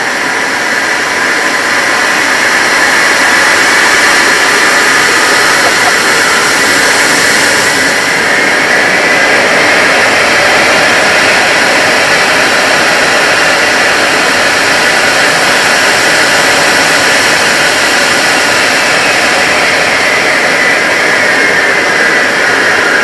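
Handley Page Victor's Rolls-Royce Conway jet engines running, heard inside the cockpit: a steady loud rush with a whine that rises partway through and falls away near the end.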